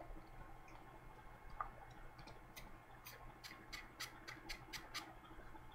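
A faint run of small, sharp clicks, about four a second for a couple of seconds, from a plastic spray bottle of leave-in conditioner being handled.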